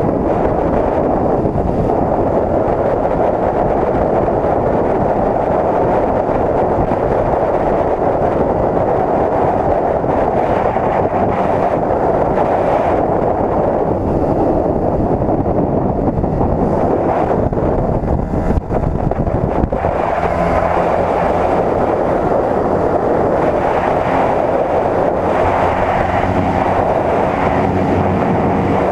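Steady wind rushing over the microphone of a rider on a moving Suzuki motorcycle, with the bike's running engine underneath. In the last third a steady engine hum comes through more clearly.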